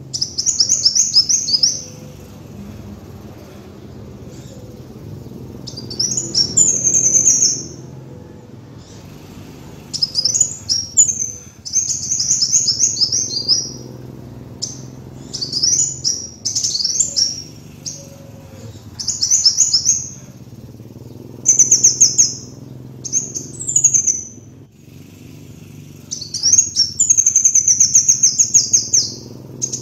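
Kolibri wulung sunbird singing: a string of high, rapid trilled phrases, each one to two seconds long, repeated after short pauses over a faint low hum.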